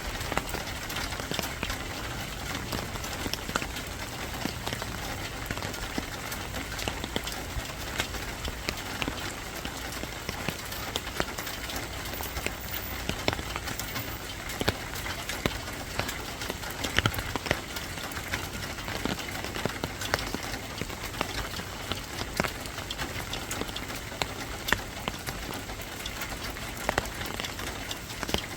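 Steady rain falling, with many sharp drops pattering and tapping on a hard surface.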